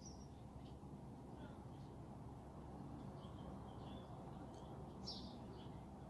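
Faint, short, high-pitched bird chirps at scattered moments over a steady low background hum, the clearest chirp about five seconds in.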